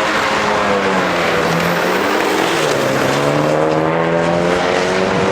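Car engine running hard on a drag strip, loud and steady; its pitch drops over the first couple of seconds, then slowly climbs again.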